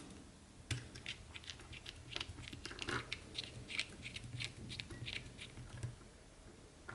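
Small screwdriver driving an M2 screw through a rubber mount into a 3D-printed micro-quad frame: a faint run of small irregular clicks and scratchy creaks.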